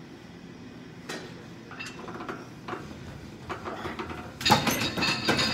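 Steel gym frame clanking and rattling as a heavy truck tire is worked onto it: scattered knocks at first, then a burst of loud metallic clanks with a ringing tone near the end.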